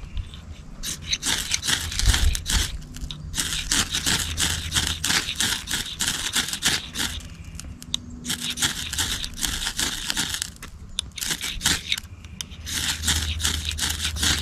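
Repeated quick scraping strokes in four bursts of a few seconds each, made while trying to light a resin-rich fatwood feather stick.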